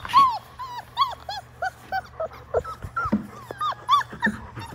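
Labrador Retriever puppy whining in a quick run of short, high whimpers, several a second, each rising and falling in pitch.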